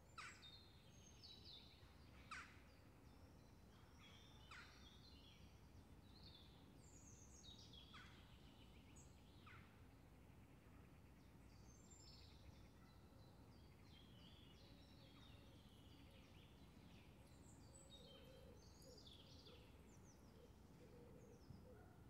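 Faint morning park ambience: scattered songbird chirps and quick high calls over a steady low rumble of distant background noise. The two sharpest chirps come right at the start and about two seconds in.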